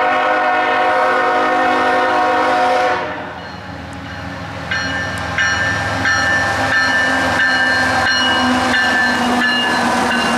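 Canadian Pacific GE diesel locomotive's multi-chime air horn sounding a long chord for a grade crossing, which stops about three seconds in. About five seconds in a second locomotive horn with a different chord starts and holds over the rumble of a passing train of tank cars.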